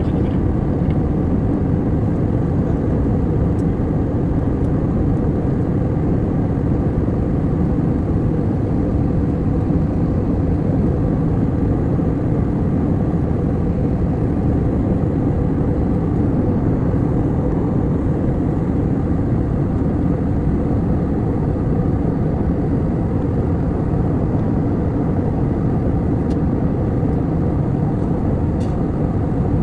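Steady low rumble of an airliner cabin in flight: engine and air noise, unchanging throughout.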